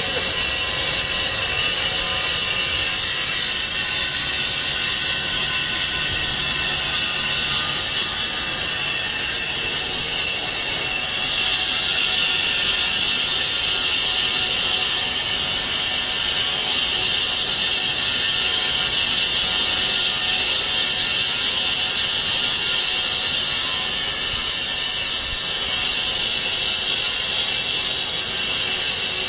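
Vertical band-knife foam cutting machine running steadily, its blade band slicing through a sheet of egg-crate profiled foam, with a continuous high hiss.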